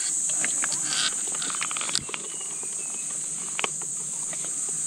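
A steady, high-pitched chorus of insects, with scattered light clicks and rustles as a hand picks through a plastic tub of shrimp bait.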